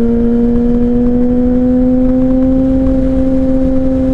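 Yamaha R1 sportbike's inline-four engine running at steady revs, its pitch creeping slightly upward, over low wind and road rumble.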